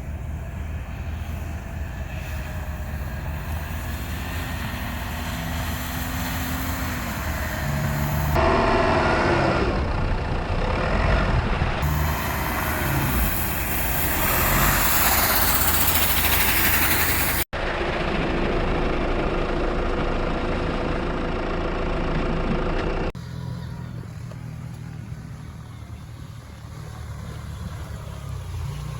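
Motor vehicle engine running and revving, heard in several short cut-together clips, with a loud rushing noise for a few seconds in the middle.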